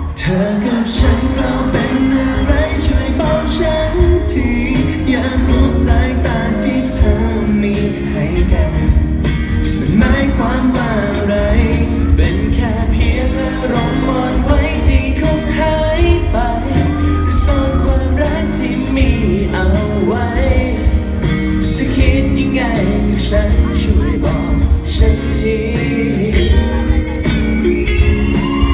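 Male pop group singing a Thai pop song live over a backing track with a heavy, steady bass beat, played loud through the concert PA and heard from the audience.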